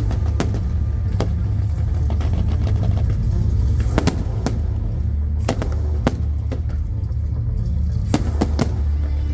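Fireworks going off: about ten sharp bangs and cracks at irregular intervals, some in quick clusters, over a continuous low rumble.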